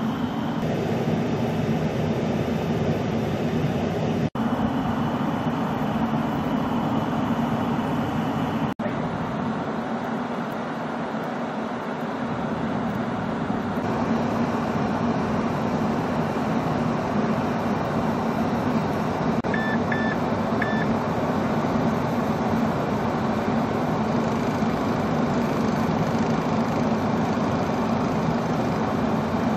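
Snowblower engine running steadily in heavy snow, with three short high beeps about two-thirds of the way through.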